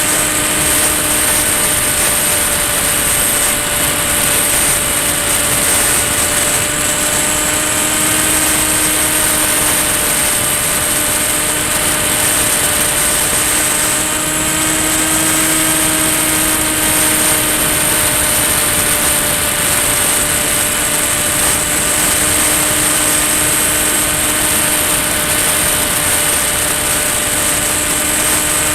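Brushless electric motor and propeller of a Ranger EX FPV plane running at steady cruise throttle in flight: a steady hum with a high whine over a constant rush of air. The pitch rises slightly about halfway through, then settles back.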